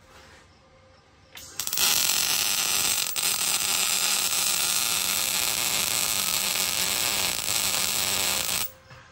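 Wire-feed welder arc welding a joint on a steel frame: after a brief strike about a second and a half in, a steady loud crackling hiss that runs for about seven seconds and cuts off suddenly near the end.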